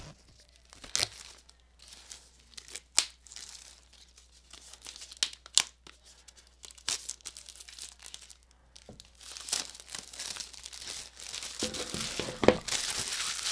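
Clear plastic shrink wrap being torn off an Apple Watch SE box: scattered sharp tearing and crackling, becoming steady crinkling of the loose plastic over the last few seconds.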